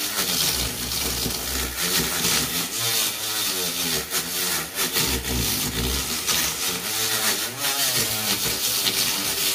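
Dremel flex-shaft rotary tool running a 180-grit emery cloth sanding disc, lightly sanding carved, stained wood to raise highlights. The motor's pitch wavers up and down as the disc touches the wood and eases off, over a steady hiss.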